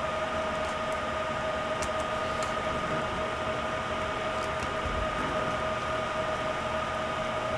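Steady background hiss with a constant whine, two tones an octave apart. There are a couple of faint high ticks about two seconds in.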